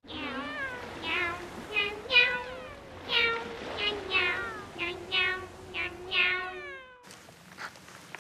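A rapid run of many short cat meows, each falling in pitch, layered over a lower held call, which cuts off abruptly about seven seconds in.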